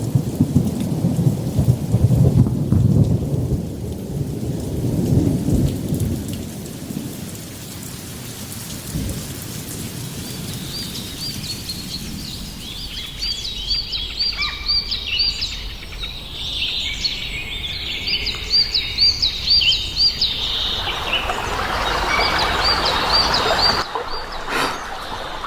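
Thunderstorm: thunder rumbling over steady rain, the rumble dying down after about seven seconds. From about ten seconds in, rapid high chirps repeat over the rain until shortly before the end.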